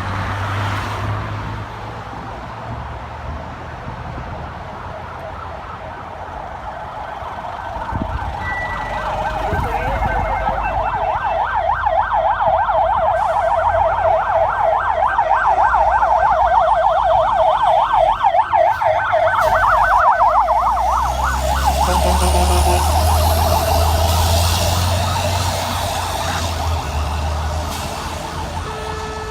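Fire department emergency vehicle sounding its electronic siren in a fast yelp that grows louder. The siren stops about two-thirds of the way through, and a deep heavy engine rumble takes over.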